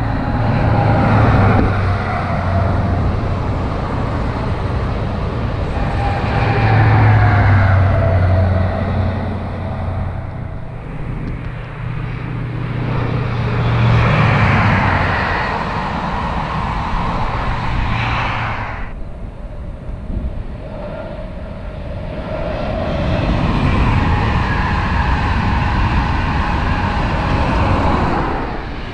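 High Speed Train passing at speed: the class 43 diesel power car's engine gives a deep drone with a whining tone that sags slightly in pitch as it goes by, over the rush of the coaches on the rails. About two-thirds of the way through the sound changes abruptly and a fresh rushing train noise builds.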